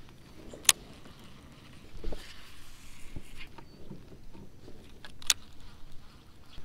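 Handling noises from a fishing kayak: two sharp clicks, about a second in and near the end, plus a soft knock about two seconds in and a few small ticks, as the paddle is put down and a baitcasting rod and reel are picked up and worked.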